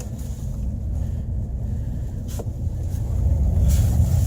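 Car running, heard from inside the cabin as a low rumble that grows louder about three seconds in, with a single faint click. The intermittent hum the owner is trying to record is not present.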